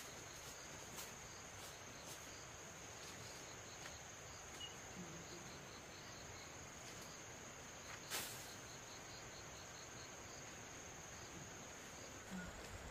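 Steady high-pitched insect drone, such as crickets chirring, with faint rapid pips beneath it. A single sharp click comes about eight seconds in.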